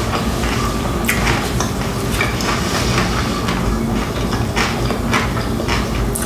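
Close-miked chewing of crispy fried chicken wings, with irregular crunches and crackles of the breading.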